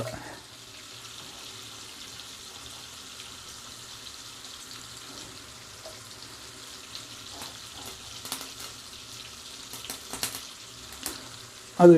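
Butter and ghee sizzling steadily in a hot pot as sliced onion fries in it, with a few light clicks in the second half.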